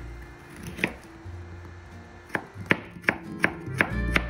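Kitchen knife slicing a carrot into thin matchstick strips on a wooden cutting board: one chop about a second in, then a run of sharp chops, about three a second, from a little past two seconds in.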